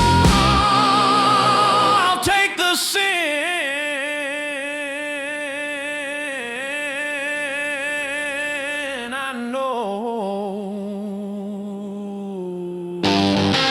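Rock music: the band drops out and a single long note with wide, even vibrato is held on its own for several seconds, then settles onto a lower sustained note. The full band with electric guitar comes crashing back in about thirteen seconds in.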